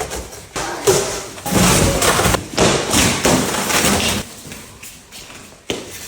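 Repeated thumps and knocks with stretches of scraping and rustling noise, from handling and unpacking boxed refrigerators.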